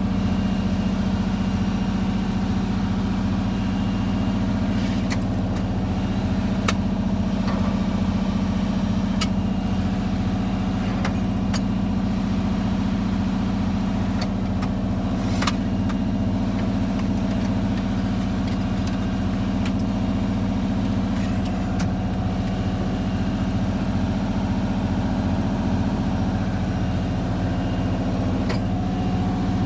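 An engine idling with a steady, unchanging low drone. A few sharp clicks and clinks of metal tools and drawers are heard over it.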